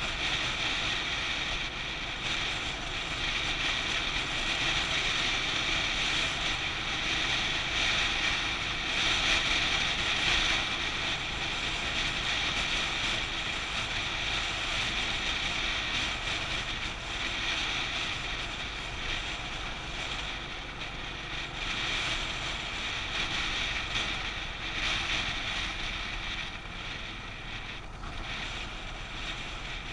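Wind buffeting the microphone of a camera on a motorcycle riding at road speed, a steady rushing hiss over the low rumble of the bike's engine and tyres.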